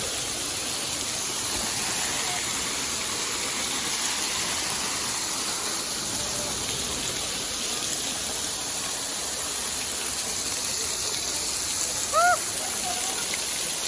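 Steady rushing of a waterfall, water pouring and splashing close by. Near the end a short, high pitched sound rises and falls once over the rush.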